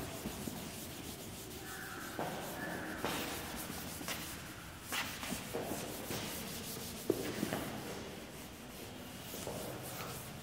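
Chalkboard duster rubbing chalk off a board in uneven, repeated wiping strokes, with one sharp tap about seven seconds in.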